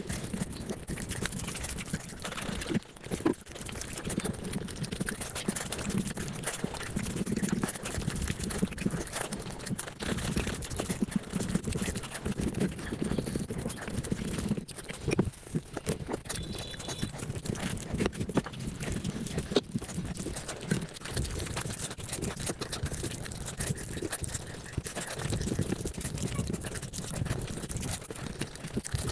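Close-up eating sounds played back about five times faster than real speed: chewing and mouth smacks running together into a dense, unbroken stream of quick clicks.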